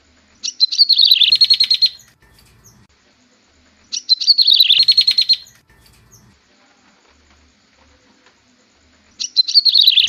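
Prenjak tebu (yellow-bellied prinia) song phrase repeated three times, about every four and a half seconds. Each phrase is a short falling note followed by a fast trill of high repeated notes lasting about a second and a half, and the last one begins near the end.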